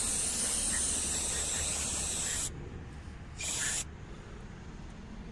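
Aerosol can of parts cleaner spraying onto engine governor parts: one long hissing spray that cuts off about two and a half seconds in, then a short second squirt.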